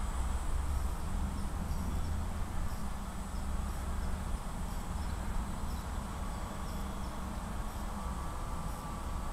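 Tarot Ironman 650 quadcopter hovering overhead, a faint steady buzz of its propellers and motors. A low rumble runs underneath and is heaviest in the first few seconds.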